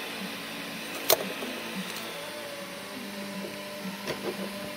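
Steady hum with a faint whine from a powered CNC stepper driver setup, with one sharp click about a second in and a few small knocks near the end.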